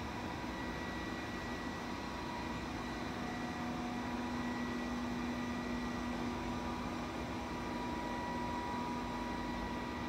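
Robot vacuum cleaner running: a steady hum of its suction fan and drive motors, with a faint whine.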